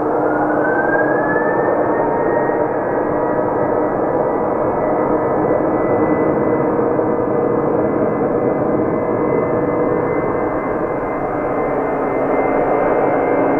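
Boeing 747-400's four jet engines spooling up for takeoff: a whine rises in pitch over the first two seconds, then holds steady above a loud, even roar.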